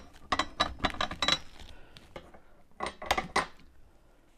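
Plastic tube plugs being pushed by thumb into the ends of a steel spreader frame's tubes, with the metal frame clinking. The sound comes as two short bursts of clicks and clatter, the second about three seconds in.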